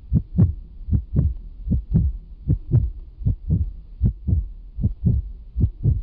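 Heartbeat sound effect: steady lub-dub double thumps, about four beats every three seconds.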